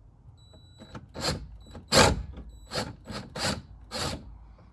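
About seven irregular knocks and clacks as air filter housing parts are handled and fitted by hand, the loudest about two seconds in.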